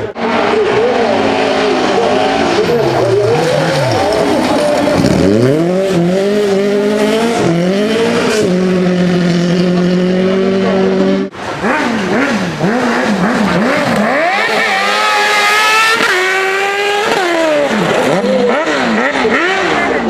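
Rally car engines revving hard on a gravel stage, the pitch climbing and dropping again and again with throttle and gear changes, with tyres sliding on the loose surface. Partway through the engine holds a steady pitch for a couple of seconds before the sound breaks off suddenly, then another car accelerates through quick rising upshifts.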